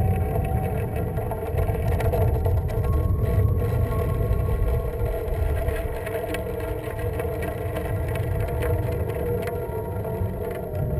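Wind rumbling over a GoPro Hero camera on a high-altitude balloon payload in flight: a steady, low noise with no sharp events.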